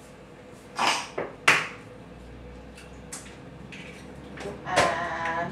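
A few sharp knocks and clatters of kitchenware at a mixing bowl, the loudest about a second and a half in, then a smaller one about three seconds in.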